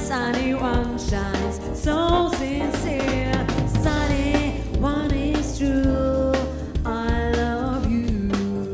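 A woman singing a wavering, sliding melody over keyboard, bass and drums.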